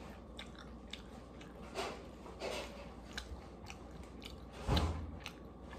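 A plastic fork clicking and scraping in a plastic takeout container of Thai food, in short irregular ticks and brief scrapes, with one louder thump just before the end.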